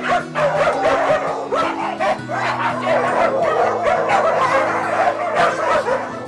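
Many dogs barking and yipping excitedly over one another as a pack rushes out together, with background music underneath.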